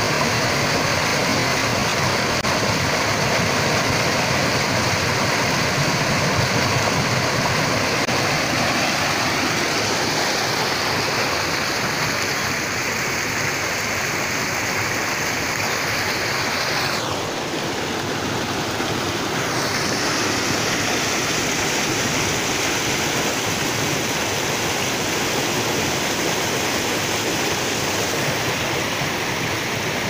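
Water rushing and splashing steadily as a stream pours over a small weir, with a brief slight drop in level about halfway through.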